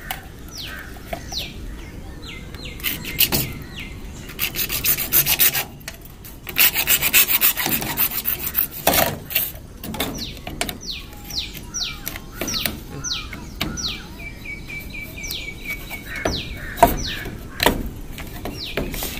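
Rough rasping and rubbing scrapes from handling electrical PVC conduit, loudest between about four and nine seconds in. A small bird chirps over it again and again in short falling notes.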